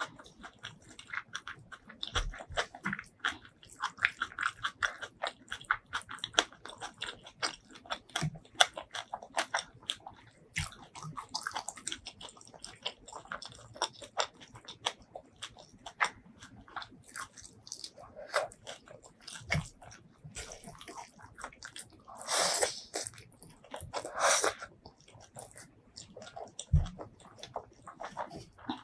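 Close-miked eating of spicy shrimp curry with rice: a steady run of wet chewing and mouth clicks. Two louder, longer rushes of noise come about three-quarters of the way through.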